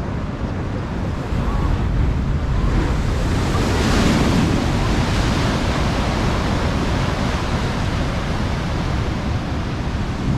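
Ocean surf breaking and washing, swelling to its loudest about four seconds in, with wind rumbling on the microphone.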